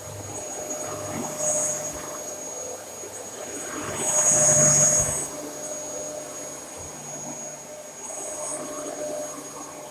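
Dyson DC33 Animal bagless upright vacuum cleaner running, a steady motor drone with a high whine, swelling louder for about a second around four seconds in.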